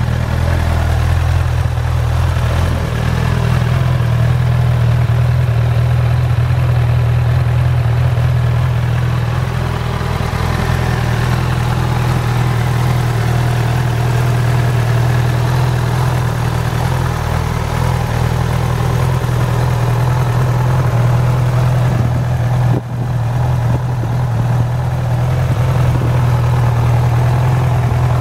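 Honda CB1000R's inline-four engine idling steadily.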